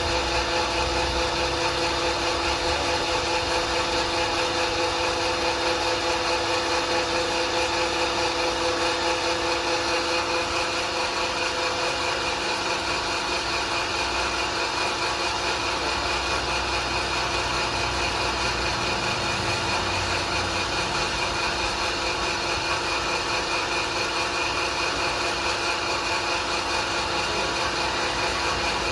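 Electric animal-feed pellet mill with a 5.5 hp, 220 V motor running with a steady mechanical hum. Its low rumble eases slightly about ten seconds in.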